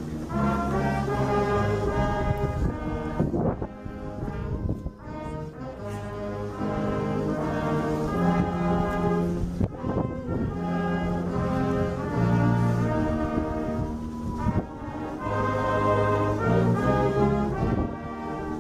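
Slow brass music: a tune of long held notes played by brass instruments, with short breaks between phrases.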